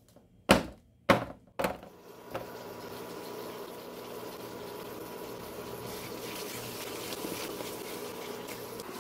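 A metal loaf tin full of Turkish delight mixture knocked down on a wooden table three times, about half a second apart, to settle and level it. Then a steady hiss from a pan of the sugar and starch mixture cooking on the hob while it is stirred.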